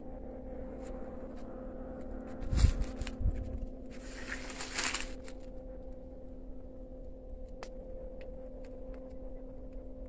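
Footsteps and brushing through dry forest undergrowth: two heavy thumps about two and a half and three seconds in, a rustling scrape of leaves and branches around four to five seconds in, and scattered crackles and twig snaps over a faint steady hum.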